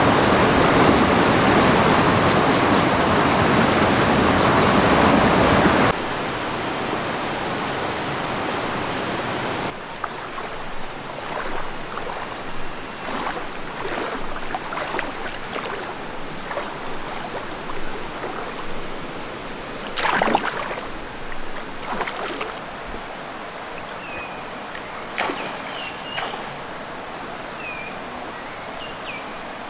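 A rocky jungle river rushing loudly over rapids for the first six seconds. Then, after cuts, a calmer pool: water lapping with small splashes, one louder splash about twenty seconds in. In the later part a steady high insect buzz runs under it, with a few short high chirps.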